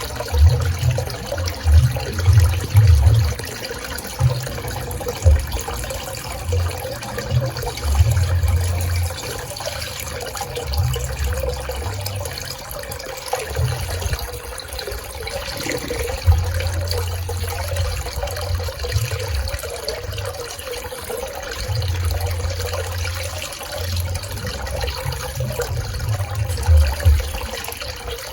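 Swimming pool water running and splashing in a steady wash of noise, with uneven low rumbles coming and going.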